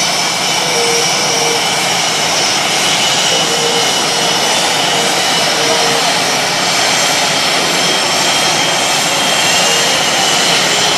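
F/A-18 Hornet jet engines running at taxi power: a loud, steady rush with a high-pitched turbine whine.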